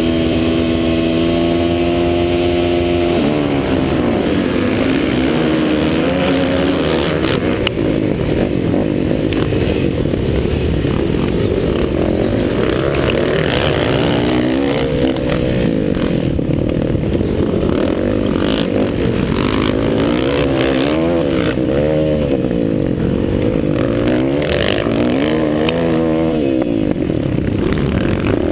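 Several motocross bikes' engines: held at a steady high rev for about three seconds, then revving up and down together, pitches climbing and dropping through gear changes.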